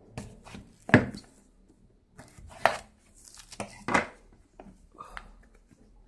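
Small knife and cardboard phone box being handled on a wooden desk: a few sharp knocks and taps as they are knocked and set down, the loudest about a second in, with softer rustles and taps between.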